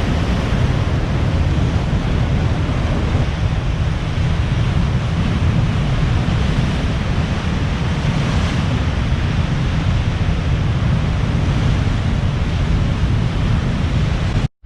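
Wind buffeting the microphone in a steady low rumble over the continuous wash of breaking surf, cutting out for an instant near the end.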